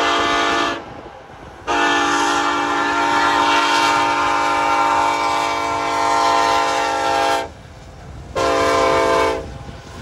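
Union Pacific SD70ACe diesel locomotive's air horn sounding in separate blasts: the tail of one blast, a long blast of about six seconds, then a short blast about a second long. This long-long-short-long sequence is the grade crossing warning signal.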